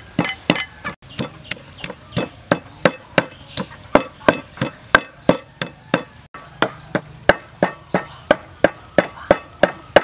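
Wooden pestle pounding garlic and chilies in a clay mortar: a steady run of sharp knocks, about three a second.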